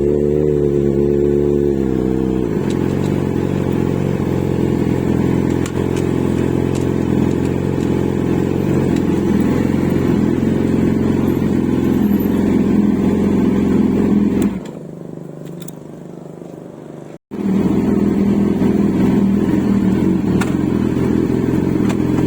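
Motorcycle engine running steadily. Its pitch drops about two seconds in. Later the sound falls away to a quieter hum, breaks off completely for an instant, and then the engine note comes back.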